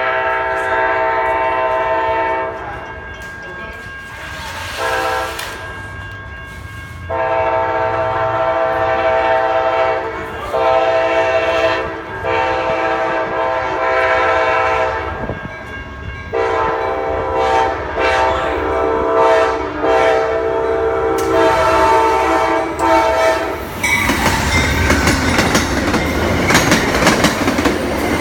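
Amtrak GE P42DC diesel locomotive sounding its multi-chime air horn in a long run of blasts, some held for two or three seconds and some cut short. Near the end the horn stops and the train passes close, a loud rumble with wheels clattering on the rails.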